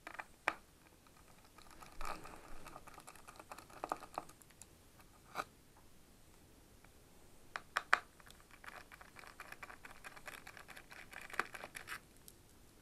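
Small screwdriver backing screws out of a 2008 iMac's housing. Two stretches of fast scratchy ticking are broken by a few sharp clicks and taps as the tool and screws touch the metal case.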